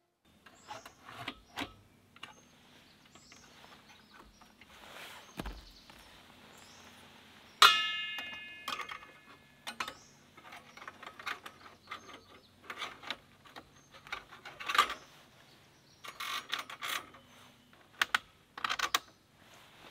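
Clicks, taps and clanks of stainless steel chimney pipe parts and a metal hand tool being handled and fitted. About seven and a half seconds in there is one loud metal clang that rings on and fades over about a second.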